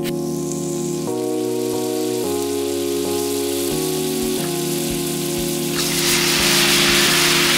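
Shrimp sizzling in a frying pan, the sizzle growing much louder about six seconds in, over background music with slow chord changes.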